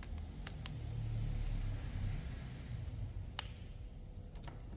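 A few faint clicks and small taps of a screwdriver on the screw of a plastic pluggable terminal block as a wire is fastened in, over a low steady hum; the sharpest click comes about three and a half seconds in.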